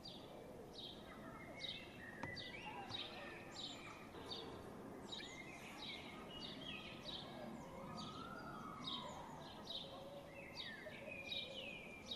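Faint outdoor birdsong: one bird repeats a short, falling chirp about twice a second, while other birds warble more quietly over a low background hiss.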